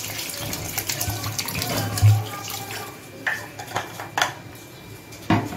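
Water poured from a plastic bottle into a curry in an aluminium kadai, a steady splashing pour for the first two to three seconds with a thud about two seconds in. Then come several short sharp knocks and clinks.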